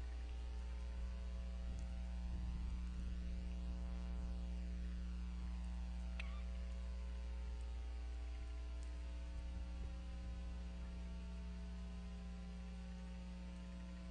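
Steady electrical mains hum with many harmonics from the nest camera's audio feed. There is one faint, short chirp about six seconds in.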